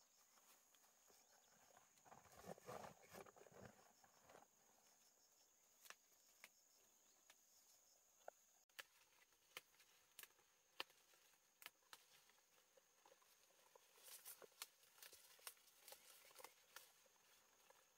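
Faint rustling and scattered light clicks and taps, with a short burst of rustling about two seconds in and a cluster of clicks near the end, over a steady faint high-pitched hiss.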